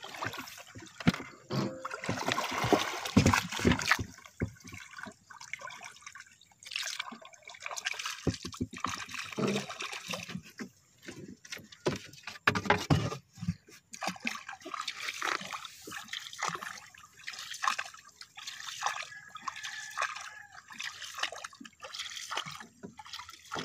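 River water splashing, sloshing and dripping in irregular bursts against a small wooden boat as a gill net is hauled in by hand over the side, loudest in the first few seconds and again about halfway. Near the end a wooden paddle strokes the water with a splash.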